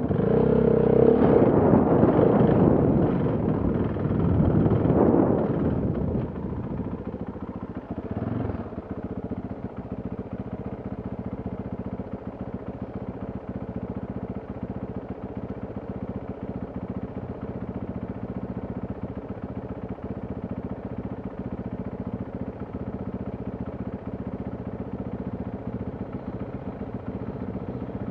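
Enduro motorcycle engine revving over the first several seconds, then settling to a steady idle.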